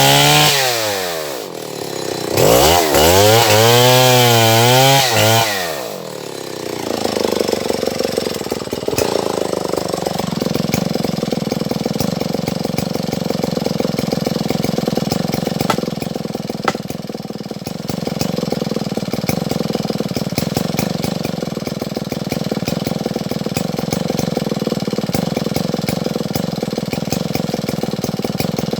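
Stihl MS070 two-stroke chainsaw revved hard twice, its pitch swinging up and down, then dropping back about six seconds in to a steady, lower running note that holds for the rest.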